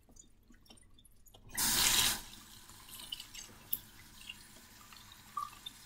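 A kitchen tap runs briefly, a short rush of water under a second long about one and a half seconds in. Faint drips and small wet ticks follow as roasted green chiles are seeded over a mesh strainer in the sink.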